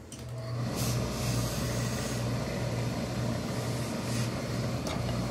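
Tailor's hose-fed industrial steam iron pressing wool suit trousers: a steady machine hum with hiss switches on right at the beginning and holds.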